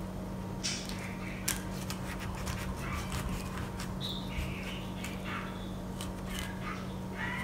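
Kitchen knife cutting into the juicy flesh of a fresh pineapple: a series of quiet, wet, crunchy scrapes as the blade scores lines through it, over a steady low hum.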